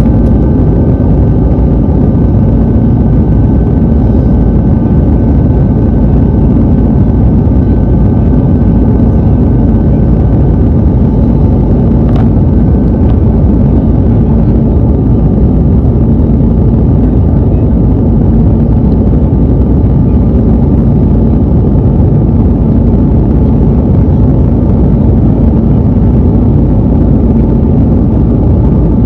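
Steady jet airliner cabin noise in flight: the engines and airflow make an even, loud rush heard from inside the cabin at a window seat, with a low steady hum beneath it.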